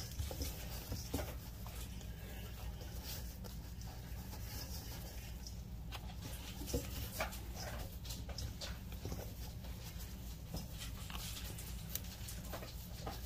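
Gloved hands squishing and kneading ground sausage and shredded cheese in a stainless steel bowl: irregular soft squelches and small clicks over a steady low hum.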